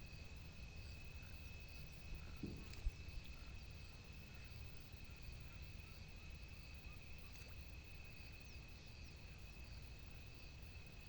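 Faint outdoor ambience of insects trilling steadily on one high pitch over a low rumbling haze, with a single short knock about three seconds in.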